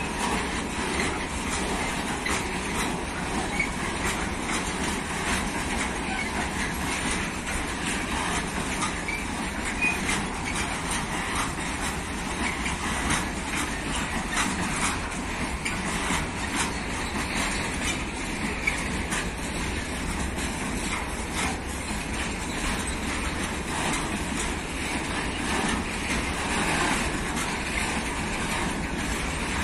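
Train running past on the rails: steady wheel noise with many small clicks of the wheels over the track.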